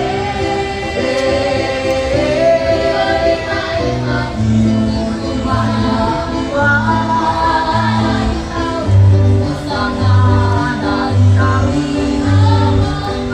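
A school choir of young girls and boys singing together in harmony over a musical accompaniment. From about four seconds in, low bass notes pulse at an even beat beneath the voices.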